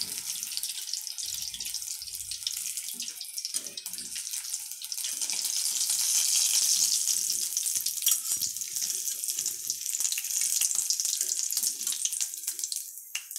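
Hot oil sizzling and crackling steadily around gram-flour-battered pointed gourd fritters deep-frying in a kadai. The sizzle swells for a few seconds in the middle and fades away near the end.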